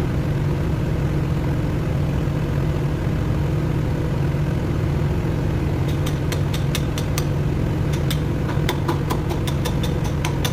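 Diesel engine of a TCM 175 wheel loader idling steadily, with a quick run of sharp clicks from about six seconds in.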